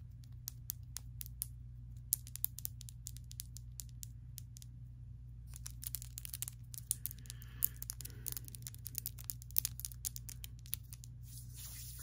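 Long acrylic fingernails clicking and tapping against each other close to the microphone: uneven runs of quick, sharp clicks, with a short pause partway through and a brief rubbing hiss near the end.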